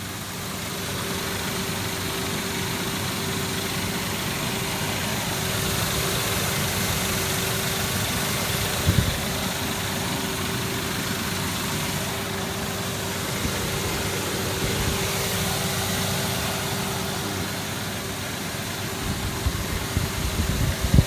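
1999 Ford Explorer's 4.0 SOHC V6 engine idling steadily with a ticking that the owner takes for lifter noise.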